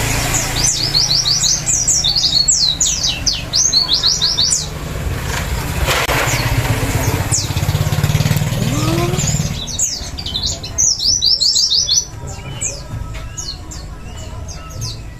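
White-eyes (pleci) singing: rapid chattering runs of short, high, falling notes in two long bursts, then scattered notes. A low hum runs underneath until about twelve seconds in.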